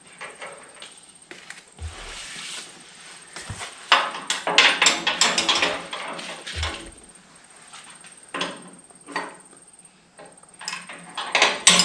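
Wrench and hand work on a nut at the hydraulic line fitting under a steel lift runway: irregular metallic clicks, taps and clanks, busiest around the middle and again near the end, with a few dull bumps.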